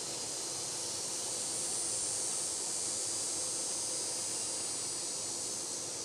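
Steady high-pitched drone of insects singing in chorus over outdoor ambient hiss, swelling slightly about two seconds in.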